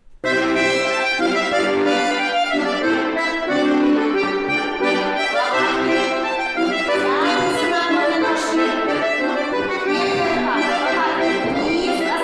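Accordion playing a lively folk-dance tune as accompaniment for a barre exercise, starting abruptly just after the beginning.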